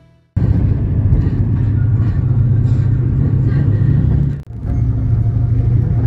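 Loud, steady low rumble of a bus's engine and road noise, starting suddenly just after the music ends. There is a brief break about four and a half seconds in, then the rumble resumes.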